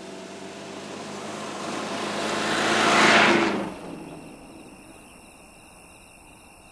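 A car passing along a dirt road: engine and tyre noise swells to a loud peak about three seconds in, then drops away sharply, leaving a faint steady hiss.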